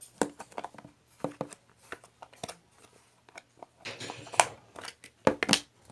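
Objects being handled up close: irregular clicks and taps, with a short crinkling rustle about four seconds in and two louder clicks near the end.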